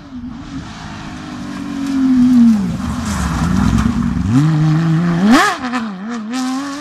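Rally car engine at full stage pace: the note falls as the driver lifts off and slows, then about four seconds in the revs climb hard under acceleration, drop sharply at an upshift just after five seconds, and climb again.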